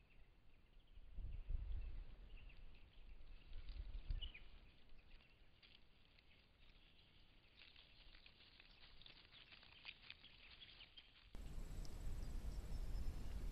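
Faint rustling and soft footfalls of a pack of wild dogs moving about on grass, with scattered short high chirps. About eleven seconds in, the background switches abruptly to a louder steady low hiss.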